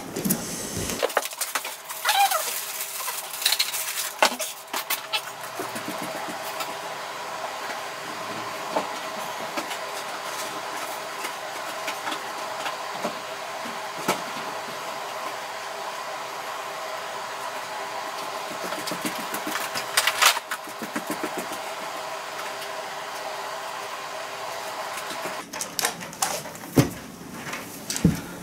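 Steady room hiss with scattered knocks and clatter of objects being handled during packing, the clicks bunching up in the first few seconds and again near the end, where the camera itself is handled.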